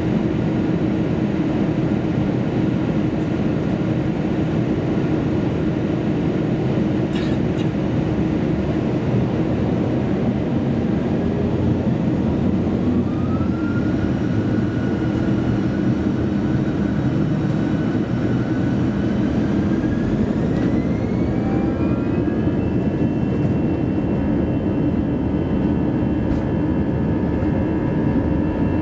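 Inside the cabin of an Airbus A321-200 airliner, a steady rumble of engine and rolling noise. Its twin jet engines spool up in two steps, a rising whine that levels off about halfway and climbs higher again about two-thirds in, as takeoff thrust is set for the takeoff roll.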